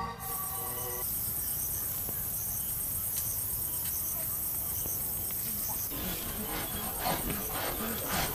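Night forest ambience: a steady, high-pitched chorus of crickets with short repeated insect chirps. About six seconds in, irregular clicks and rustling join it.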